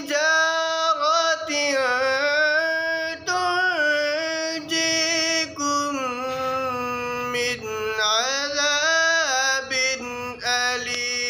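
A young man reciting the Quran in the melodic chanted style, in Arabic. He holds long notes that bend and waver in pitch, with short pauses for breath every few seconds.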